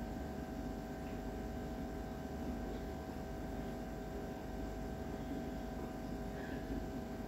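Steady electrical hum over sliced onions and curry leaves frying in oil in a nonstick kadai, stirred with a wooden spatula, with a few faint scrapes.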